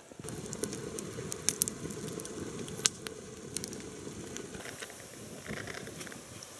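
Wood campfire crackling, with sharp irregular pops over a steady low rush of burning.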